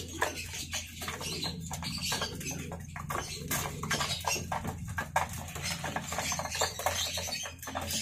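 Racing pigeons pecking grain from a feeder: a rapid, irregular run of small taps and clicks.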